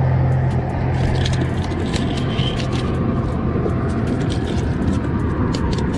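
Motor vehicle traffic going by: a low engine hum that fades out about a second and a half in, over a steady rush of noise with scattered light clicks.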